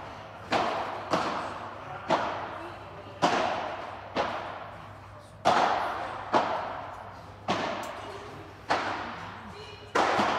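A padel rally: the ball struck by paddles and bouncing off the court, about ten sharp pops at irregular intervals of roughly a second, each followed by an echo in the enclosed hall.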